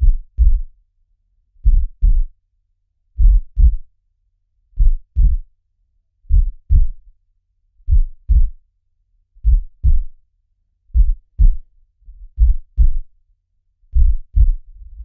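Heartbeat: slow, steady lub-dub pairs of low thumps, one pair about every one and a half seconds, ten in all, with a faint low rumble between some of the beats.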